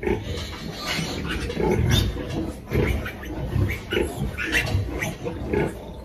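Piglets squealing and grunting in short, irregular bursts as they are lifted out of a farrowing pen.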